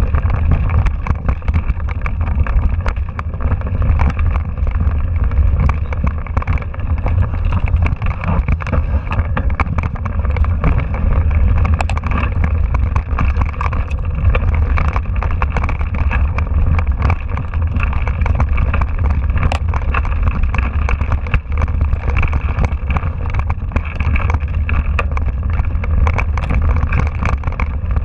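Mountain bike riding a rough dirt trail, heard from a handlebar-mounted camera: a steady heavy rumble of wind and vibration on the microphone, with the rattle and many small clicks of the bike and tyres over the ground.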